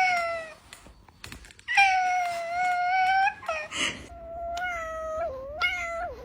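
Domestic cat meowing repeatedly. A long, steady meow of about a second and a half, then a short rough sound, then lower, wavering calls and short meows near the end.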